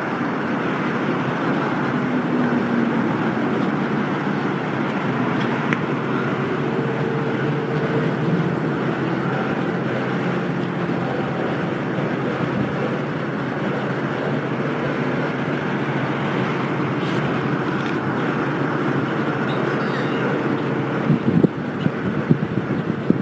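Steady city road traffic noise, a continuous rumble of passing cars, with wind buffeting the microphone in uneven thumps near the end.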